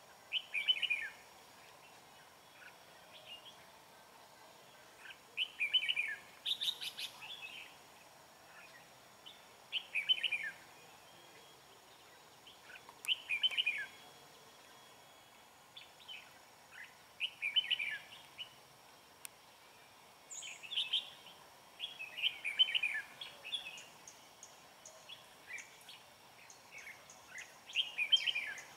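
Red-whiskered bulbuls singing short, bright phrases about every three to four seconds: the territorial challenge song traded between a caged decoy bulbul and wild bulbuls at a trap.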